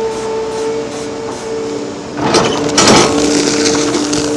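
Liebherr R 930 excavator running with a steady mechanical whine, with a loud, noisy burst of scraping and knocking about halfway through.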